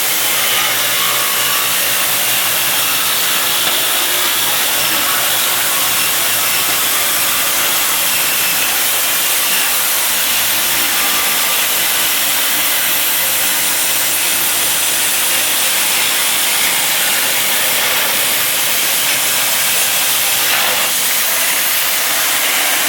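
A steady hiss of blown air, played onto a power saw's cut through half-inch plexiglass sheet to clear the masking tape from the blade's path, over the running saw.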